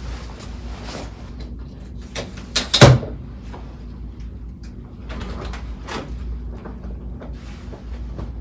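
Handling and movement noises in a room with a steady low hum: rustling and light clicks, one loud thud about three seconds in, and a hotel room door being unlatched and pulled open near the end.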